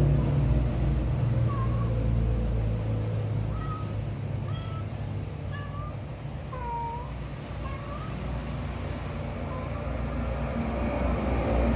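Domestic cat making a run of short, chirp-like calls, about ten in a row with brief gaps, some dipping or rising slightly in pitch, over a steady low rumble.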